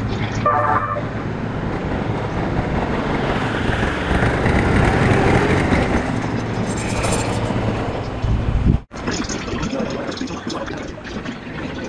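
Series E257 limited express electric train running past close by: a loud, steady rumble of wheels and motors with a low hum. About nine seconds in the sound cuts off abruptly and gives way to the quieter running noise of another train, a Series E261.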